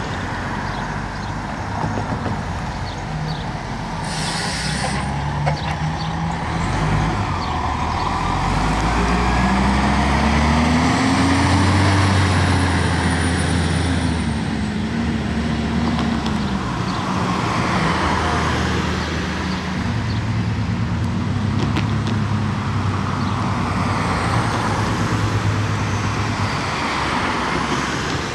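MCI transit coach with a Detroit Diesel Series 60 engine: a short air-brake hiss about four seconds in, then the diesel revving up with rising pitch as it pulls away, settling into a steady run, over tyre noise from traffic on wet pavement.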